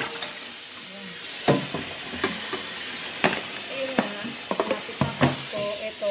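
Sharp, scattered knocks and clatters of kitchenware being handled during food preparation, over a steady hiss.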